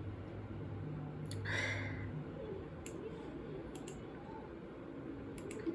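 A few faint, sharp clicks, spaced irregularly, over a low steady hum, with a short soft rustle about a second and a half in.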